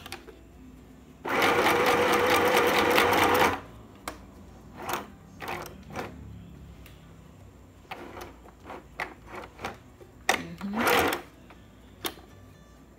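Sew Simple FHSM 505 sewing machine running and stitching for about two seconds, its needle mechanism making a rapid even rattle over the motor's steady hum. It is followed by scattered clicks and a second, shorter burst near the end.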